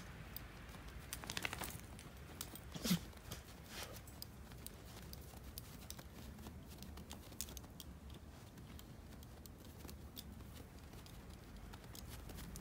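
Faint crunching and pattering of footsteps in snow, with one short, louder sound about three seconds in.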